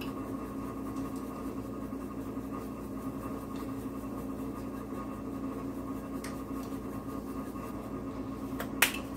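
A whisk stirring butter sauce in a cast iron skillet, soft and continuous, over a steady mechanical hum; one sharp tap near the end.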